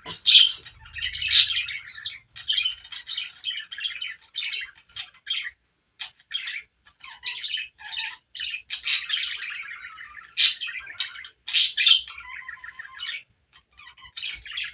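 A bird calling over and over in short, high-pitched calls with brief pauses, some calls louder than the rest.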